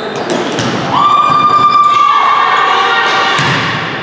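Volleyball rally in a gym: a few sharp thuds of the ball being struck, then, about a second in, a long, high-pitched shout with cheering from players and spectators.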